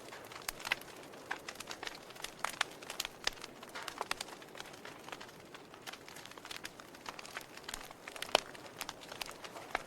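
Wood fire burning in a fireplace, crackling with irregular sharp snaps and pops, one louder pop about eight seconds in.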